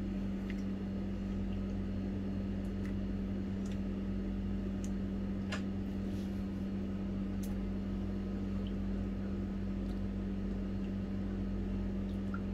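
A steady machine hum with a constant low tone, and a few faint soft clicks and splats as raw chicken strips are dropped into a thick yogurt marinade.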